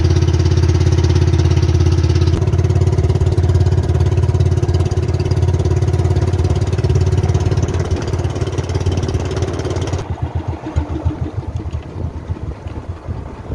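Engine of a motorized outrigger fishing boat running steadily at cruising speed with a low, even drone. About ten seconds in it turns quieter and more uneven.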